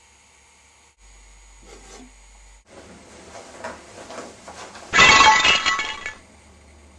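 A loud crash about five seconds in, lasting about a second, after quiet room noise and faint handling sounds.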